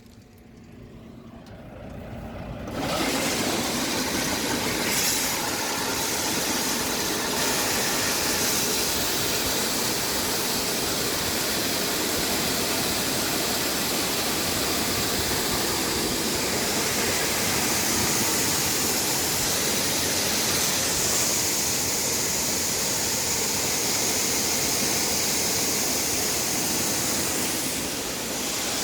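Steady running noise of farm harvesting machinery, starting about three seconds in after a short quieter moment.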